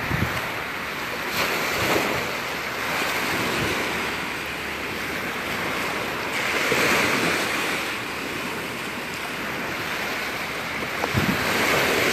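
Gulf of Mexico surf washing up the beach, swelling and easing every few seconds, with wind buffeting the microphone.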